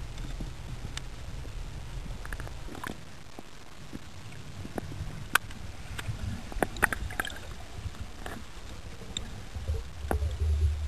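Underwater sound picked up by a diver's camera: a low rumble of moving water with scattered sharp clicks and ticks, a cluster of louder clicks about halfway through, and the rumble swelling near the end.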